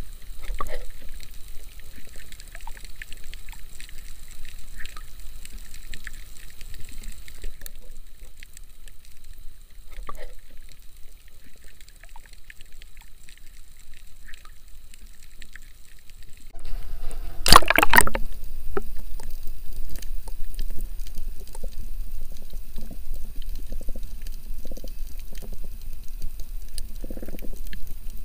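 Underwater sound from a camera held in the water over a shallow coral reef: a muffled watery wash with scattered faint clicks. About 17 seconds in there is a brief, loud burst of noise.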